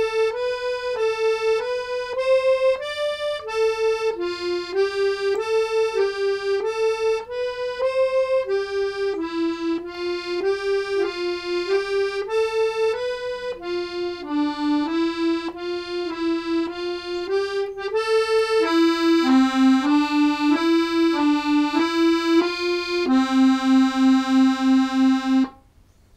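Hohner Bravo II 48 piano accordion playing a beginner speed drill at 95 beats per minute: a single line of evenly paced notes stepping up and down. It ends on one low note sounded several times in quick succession, which cuts off suddenly near the end.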